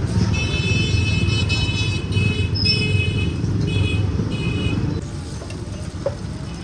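Street traffic rumbling, with a high tooting tone like a vehicle horn sounding in several broken stretches over the first five seconds.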